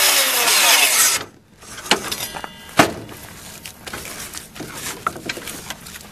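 Benchtop table saw running and cutting through a log, which cuts off suddenly about a second in. Then a few sharp wooden knocks and small clicks as the log is handled on the saw's table, the loudest near three seconds in.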